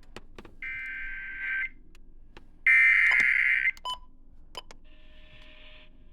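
Emergency Alert System SAME header: two bursts of warbling two-tone data, each about a second long and a second apart, the second much louder, then faint hiss. It is the coded header that opens a severe thunderstorm warning broadcast.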